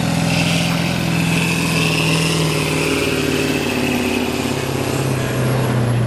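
Kirovets K-700-series tractor's diesel engine running hard under full load while pulling a weight-transfer sled; its pitch drops about halfway through as the engine is pulled down by the load.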